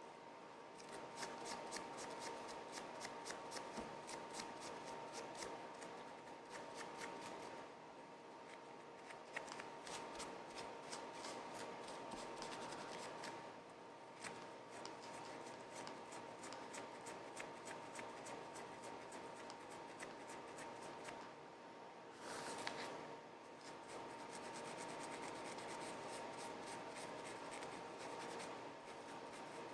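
A rail and stile router bit being scrubbed clean of pitch buildup, in runs of quick back-and-forth strokes, about four a second, with short pauses between runs.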